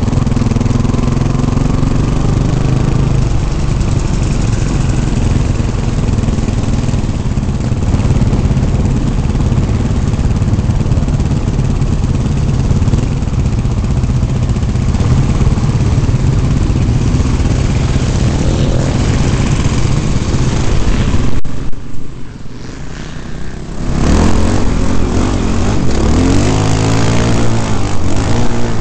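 Off-road motorcycle engines running, heard from the rider's helmet. About three-quarters of the way through the sound drops away suddenly for a couple of seconds, then the engine revs hard again, its pitch sweeping up and down as it accelerates.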